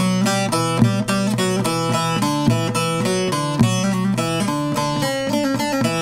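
Short-neck bağlama played with a plectrum: a quick run of picked melody notes over the steady drone of the lower strings.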